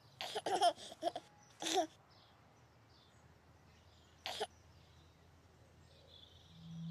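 A baby giggling and cooing: a quick run of short giggles in the first two seconds, then one more brief giggle about four seconds in.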